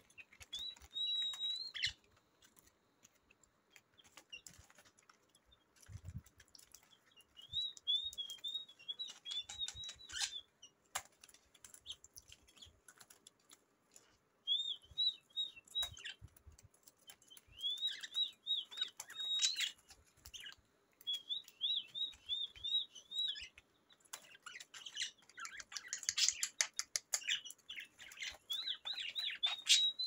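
Pet budgerigars chirping in quick runs of short, arching notes, in bouts a few seconds apart, with scattered sharp clicks and rustles from the cage.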